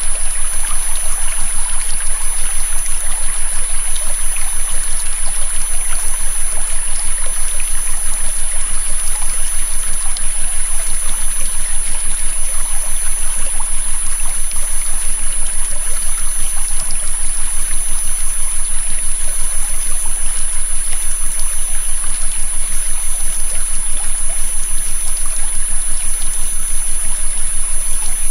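Recorded river water running steadily, with a steady, high-pitched synthesized tone laid over it and a fainter second tone below it.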